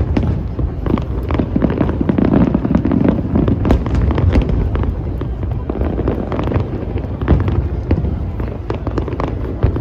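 Fireworks display going off: a continuous series of booming shell bursts and sharp crackling pops, one after another, over a steady low rumble.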